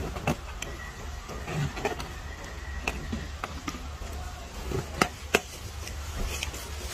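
Scattered light taps, clicks and rustles as a young macaque grips and shifts a rubber balloon on leaf-littered ground. Two sharper clicks come about five seconds in, over a steady low rumble.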